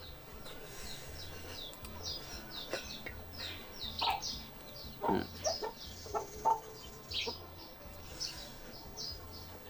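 Chickens clucking and chirping: many short, falling calls in quick succession.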